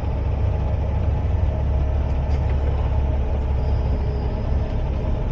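Semi truck's diesel engine running steadily at low speed, a continuous low rumble heard from inside the cab.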